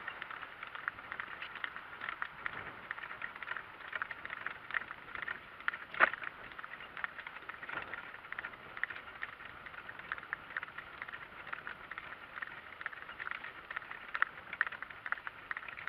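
Donkey-drawn off-road cart rolling over rough ground: a continuous irregular rattling and clicking from the cart, with one louder knock about six seconds in.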